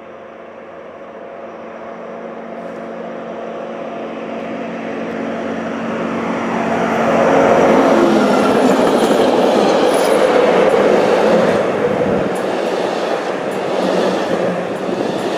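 V100 diesel-hydraulic locomotive hauling a construction train up a grade, apparently at full power. Its engine grows steadily louder on the approach and is loudest as it passes about eight seconds in. The heavy wagons and track machines then roll by with clicking wheels.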